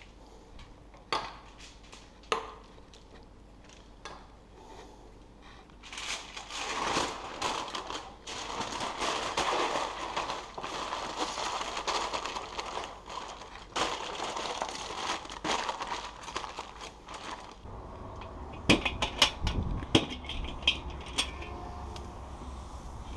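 Aluminium foil crinkling and crumpling for about ten seconds as it is folded and crimped into a packet, after a couple of light clicks. Near the end, wind rumble on the microphone and a few sharp knocks as the foil packets are set on a smoker's grill grate.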